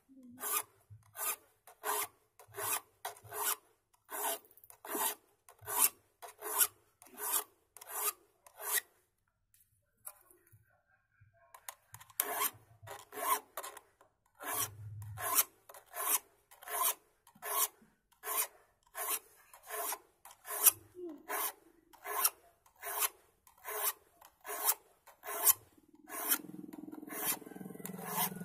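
Hand file rasping across the steel teeth of a handsaw in even strokes, about two a second, as the teeth are sharpened; the filing pauses for about two seconds roughly ten seconds in, then resumes. Near the end a lower, steady noise comes in under the strokes.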